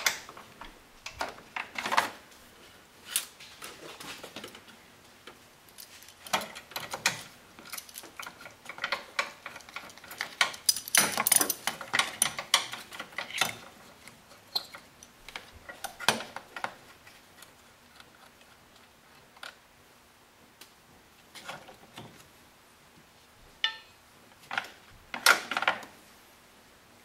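Ratchet socket wrench clicking in short, irregular runs as the 10mm battery hold-down screws are loosened. The clicks come in clusters, busiest in the middle, then a quieter stretch, then another burst near the end.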